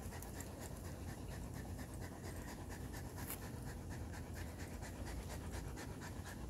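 A dog panting steadily.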